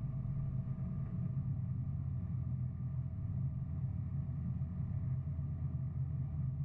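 Steady low drone of the towing truck's engine and running gear, heard from on the flatbed trailer as it rolls along.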